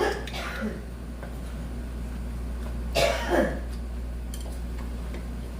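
A person clearing their throat with two quick coughs about three seconds in, over a steady low hum.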